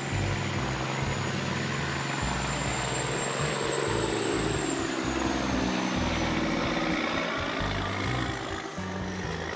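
Heavy diesel machinery running steadily, its engine note rising about a third of the way in, over a continuous low rumble.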